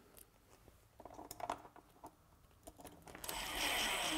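A few light clicks of small parts being handled, then about three seconds in a cordless driver starts whirring steadily as a stainless screw is started into the transducer board.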